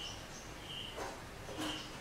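Faint, repeated short high chirps, about one every half second to second, with two brief rustles about a second in and near the end.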